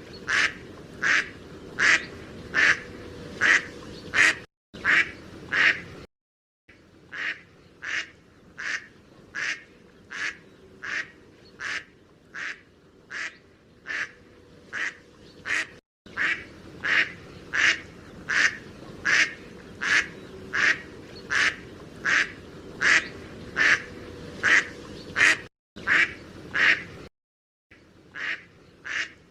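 Mallard duck quacking in a long, steady run of short quacks, about two a second. The run is broken a few times by abrupt silent cuts.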